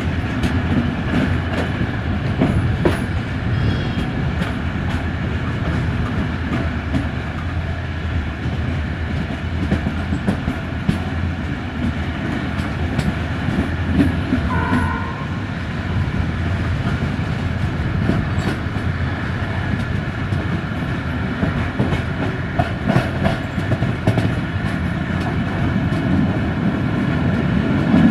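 Passenger train running along the line, heard from on board: a steady rumble of wheels on rails with irregular clicking as the wheels pass over rail joints.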